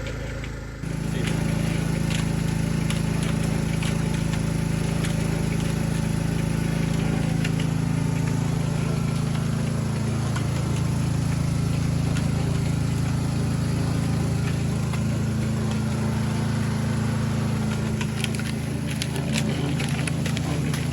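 A motor running steadily, its note shifting slightly about ten seconds in, with light clicks and knocks near the end.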